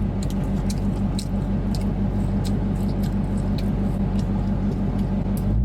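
A car engine's steady low drone heard from inside the cabin, with a regular pulsing throb and scattered light clicks. It starts abruptly and cuts off sharply near the end.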